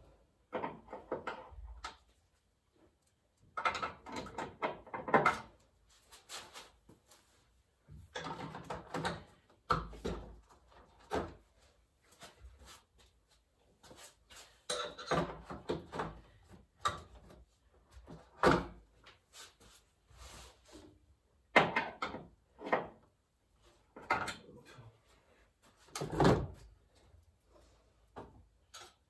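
Irregular bursts of metal clinks and knocks from hand tools and engine parts being handled during car engine disassembly, coming in clusters every few seconds with quiet gaps between.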